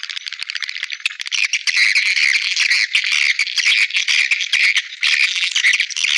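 Recorded swiftlet calls of the kind played to lure swiftlets into a nesting house: a dense, high-pitched chatter of rapid twittering trills and clicks, growing louder about a second and a half in.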